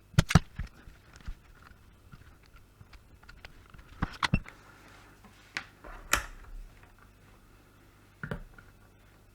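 Scattered sharp clicks and taps of small tools and parts being handled on a workbench, with a few close together at the start, a pair about four seconds in, a longer scrape-like click about six seconds in, and one more near the end.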